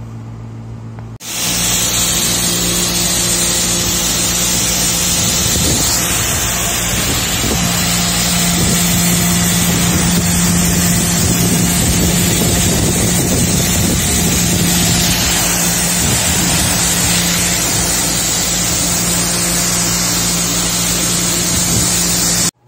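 Pressure washer spraying water onto an air-conditioner's condenser coil: a loud, steady motor hum under the hiss of the spray. It starts abruptly about a second in and cuts off suddenly near the end.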